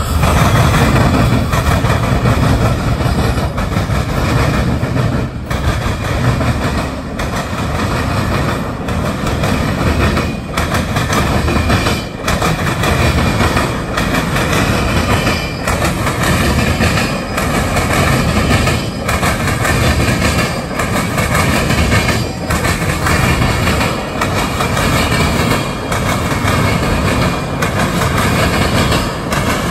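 Freight train passing close by. The lead GE diesel locomotives rumble past in the first few seconds. After that, a string of empty tank cars rolls by, with a regular clickety-clack of wheels over the rail joints about every second and a half.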